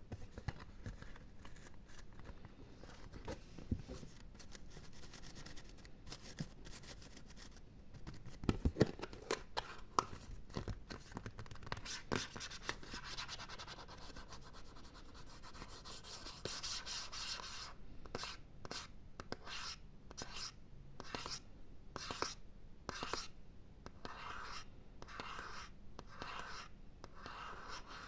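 Fingernails scratching and rubbing on an object in short, irregular strokes, with a stretch of steadier rubbing partway through. Near the end the scratches settle into an even rhythm of about two a second.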